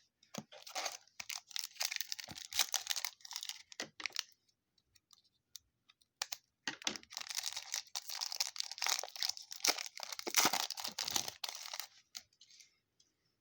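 Plastic trading card pack wrapper being torn open and crinkled by hand, in two bouts of crackling separated by a short pause.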